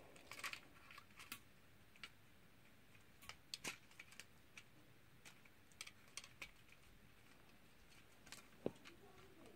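Near silence with faint, irregular small clicks of hard plastic being handled, as a stuck Beyblade is worked at to free it.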